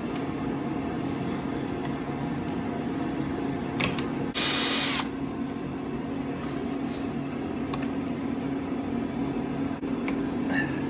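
Steady low workshop hum with a few light tool clicks, and one loud noisy burst lasting under a second about four seconds in, from a tool used on the motorcycle.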